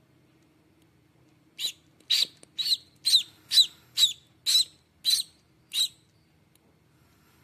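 Duckling peeping from inside its broken shell as it hatches: about nine short, high-pitched peeps, roughly two a second, each falling in pitch, starting about a second and a half in.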